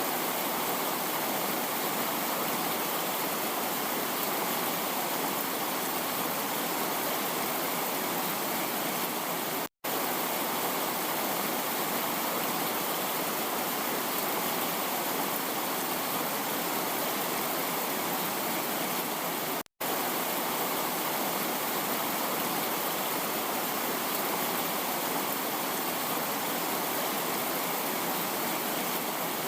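Heavy rain falling steadily, an even, unbroken hiss. The sound cuts out for an instant twice, about ten seconds apart.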